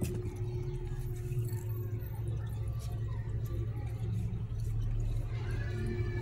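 Steady low mechanical hum with a faint steady tone above it.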